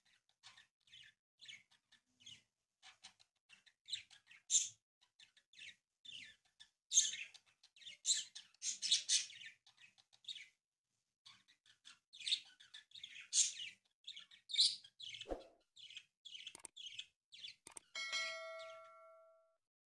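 Origami paper crinkling and crackling in short, irregular bursts as it is folded and creased by hand, with a single thump about 15 seconds in. Near the end a bright chime rings out and fades, the notification sound of a subscribe-button animation.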